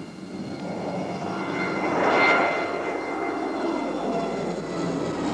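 De Havilland Canada Dash 7 four-engine turboprop airliner flying low overhead with its landing gear down. The engine noise swells to a peak about two seconds in, with a high whine over the rush, and then stays loud. It is a noise-test flypast that read nearly 5 decibels above the previous run.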